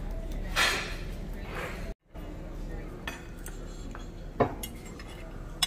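Cutlery clinking and scraping on a dinner plate while eating, with a few sharp separate clinks, the loudest about three-quarters of the way in. The sound drops out briefly about two seconds in.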